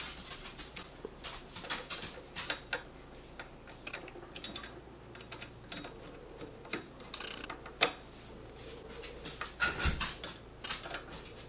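Light, irregular clicks and taps of a metal thread-guide bracket being handled and fitted onto the pole of a sewing machine thread stand, with a brief louder clatter and knock about ten seconds in.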